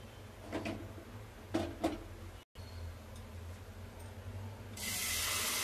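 Low hum with a few light knocks, then about a second before the end a loud sizzle starts as oats-and-egg omelette batter is poured into hot oil in a non-stick frying pan.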